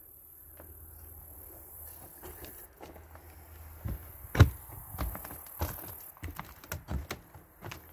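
Footsteps on the old, decaying wooden floor and stairs of a derelict house: quiet at first, then from about halfway a string of knocks, thuds and cracks as the boards take his weight, one heavy thud much louder than the rest.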